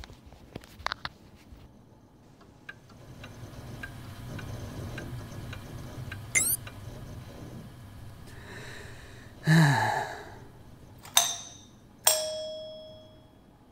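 Sound effects: a few clicks, then a low hum that swells and fades. A quick rising chirp comes midway, then a short whoosh with a falling pitch. Two sharp ringing strikes follow near the end, the second leaving a ding that fades over about a second and a half.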